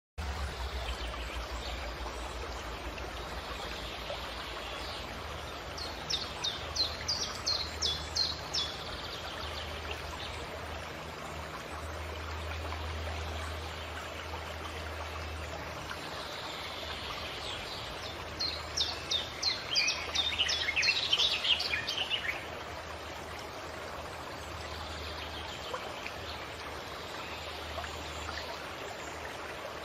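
Water running steadily in a stream, with a songbird singing two bursts of rapid repeated chirps, one about six seconds in and a longer one about eighteen seconds in.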